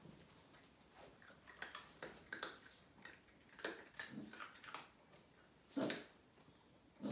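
A puppy making short yips, the loudest about six seconds in, amid light scuffling and rustling of the cardboard box and paper.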